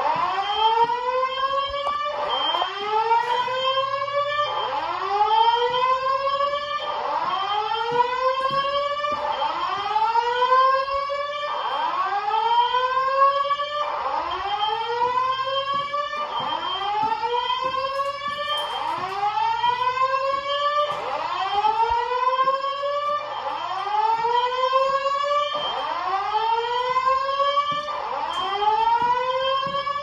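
Fire alarm voice-evacuation speakers on a Simplex 4100ES system sounding the whoop tone: a rising sweep that repeats about every two and a half seconds. A second sweep, out of step with the first, overlaps it throughout.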